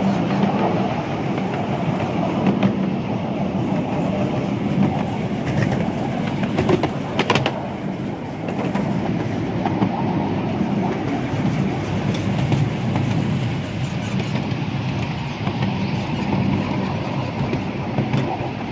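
Miniature-railway carriages running along 10¼-inch gauge track with a steady ride noise from the wheels and bodywork. A brief harsh high-pitched noise comes about seven seconds in.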